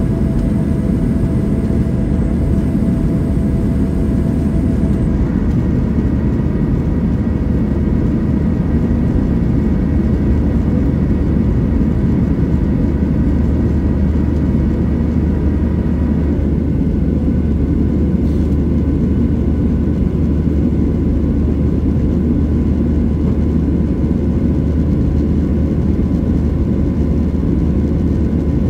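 Cabin noise of a Boeing 737 jet airliner heard from a passenger seat: a steady, unchanging drone of engines and airflow, with faint steady tones in it.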